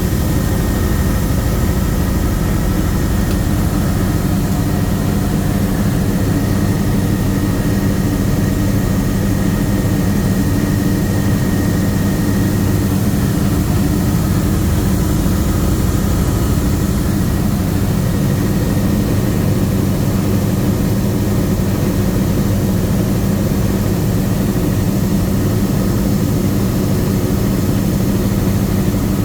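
Bell 505 Jet Ranger X helicopter in cruise flight, heard from inside the cabin: the turboshaft engine and rotors give a loud, steady drone with a constant low hum, and a faint high whine that fades out about halfway through.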